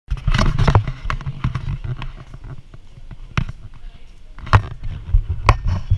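Handling noise from a body-worn camera: irregular sharp knocks and bumps over a constant low rumble.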